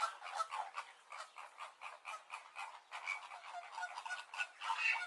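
Flamingos calling: a dense, continuous chatter of short calls, several a second.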